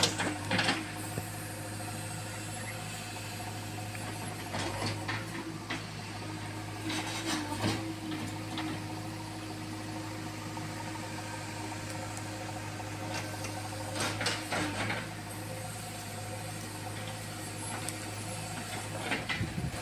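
JCB 3DX backhoe loader's diesel engine running steadily as the backhoe digs, with a few short knocks and clatters scattered through.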